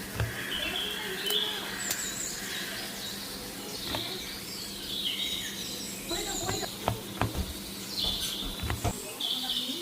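Small birds chirping repeatedly in the background, with occasional sharp clicks and soft knocks over a faint steady hum.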